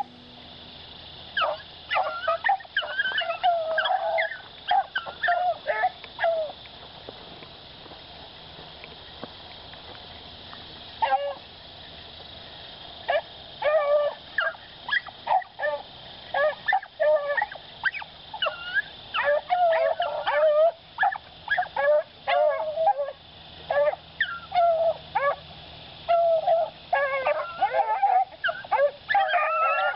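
Beagles baying as they run a rabbit's track, with repeated hound bays from more than one dog. The baying stops for a few seconds about a quarter of the way in, then starts again and grows denser toward the end.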